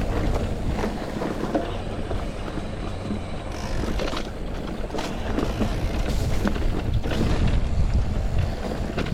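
Mountain bike rolling over a dirt forest trail: steady tyre and wind rumble on the microphone, with sharp knocks and rattles as the bike hits bumps.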